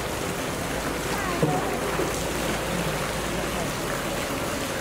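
A steady rushing hiss with faint voices talking in the background, and a single soft knock about a second and a half in.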